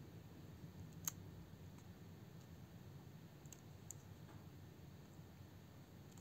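Small plastic clicks from fingers handling the broken clip end of a Vorago HPB-401 headphone's plastic headband: one sharp click about a second in, then a few faint ticks a little past the middle, over a faint low hum.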